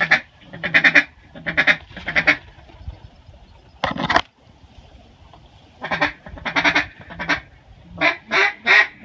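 Duck quacking: loud, repeated quacks in short clusters, ending in a run of about five quacks.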